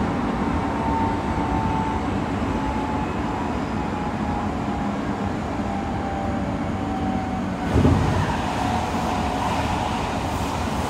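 Running noise inside an Odakyu 3000 series electric train: a steady rumble of wheels on rail with a thin motor whine that falls slowly in pitch as the train slows. A brief loud thump about eight seconds in.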